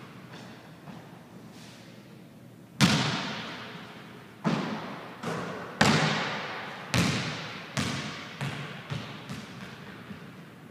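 A basketball bouncing on a hardwood gym floor, each bounce echoing around the empty gym. The loudest hit comes about three seconds in; from about six seconds the bounces come quicker and fainter as the ball settles.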